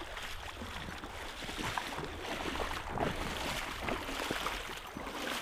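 A person wading through a shallow, flowing river, the water sloshing and splashing irregularly around the legs with each step over the steady rush of the stream.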